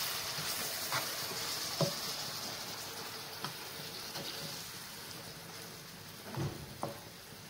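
Mushrooms and tomato sauce sizzling in a frying pan while a wooden spatula stirs them, knocking against the pan a few times. The sizzle fades gradually.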